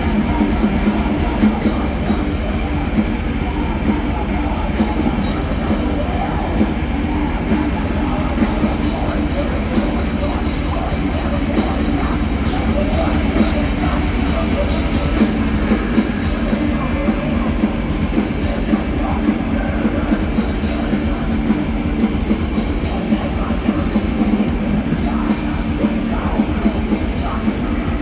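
Live heavy metal band playing loud and fast: distorted electric guitars and a pounding drum kit in one dense, unbroken wall of sound, with some vocals.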